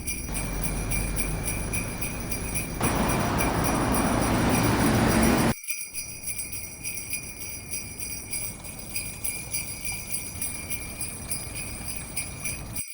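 Background music with jingling sleigh bells. Over the first half a broad rushing noise, louder from about three seconds in, cuts off suddenly about halfway through.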